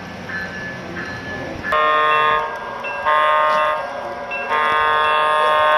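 Sound system of an O scale model diesel locomotive, first ringing its bell with an evenly spaced ding, then blowing a multi-note air horn: two short blasts and then a long one that is still sounding at the end.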